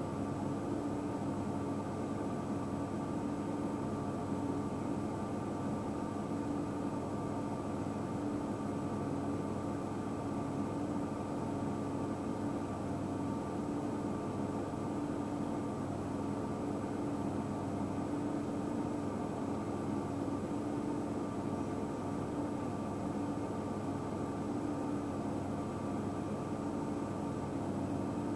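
Steady mechanical hum with several held tones under an even hiss, unchanging in level throughout.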